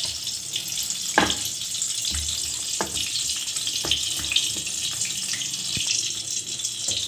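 Hands breaking off and handling stiff dough in a stainless-steel bowl and on a wooden board: a few soft knocks, one a little louder about a second in, over a steady hiss.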